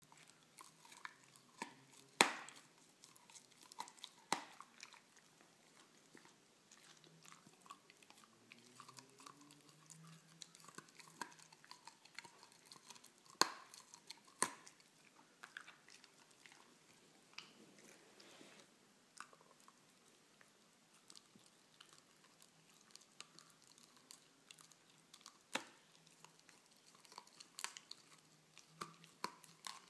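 A beagle chewing a hard chew bone: irregular sharp crunches and clicks of its teeth on the bone, the loudest a couple of seconds in and again around thirteen to fifteen seconds in.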